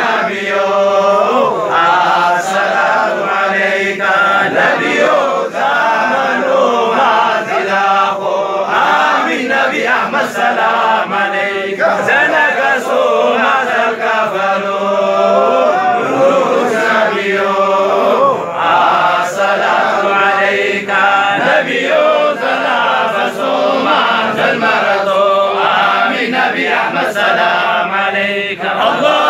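Group of men chanting a Harari zikri (Islamic devotional menzuma) together, many voices singing a slow, continuous melodic chant.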